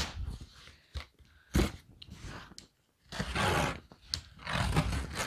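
Cardboard boxes and packaging being handled: rustling and crinkling, with a couple of short knocks early on.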